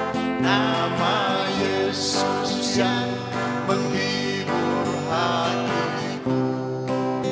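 Gospel song with guitar accompaniment and a sung vocal line of wavering, ornamented notes, with a brief cymbal-like hiss about two seconds in.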